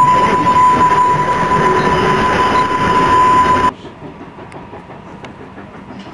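Old passenger coaches of a museum train rolling past close by, wheels running over the rail joints with a loud rumble and a steady high-pitched tone. The sound cuts off abruptly a little over three and a half seconds in, leaving a much quieter background with a few faint chirps.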